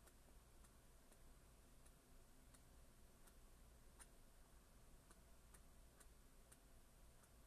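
Near silence: quiet room tone with a faint low hum and scattered small clicks at uneven intervals.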